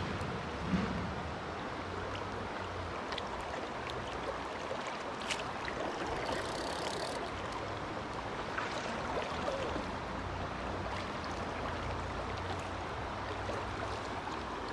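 Steady rushing of a river running high after rain, with a few faint clicks and splashes.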